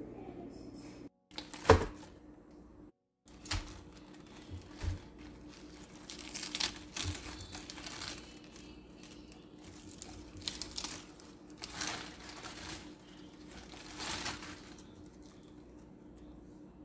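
Head of iceberg lettuce being pulled apart and its leaves torn by hand, giving irregular crisp crackles and rustles. A single sharp knock, the loudest sound, comes near the start.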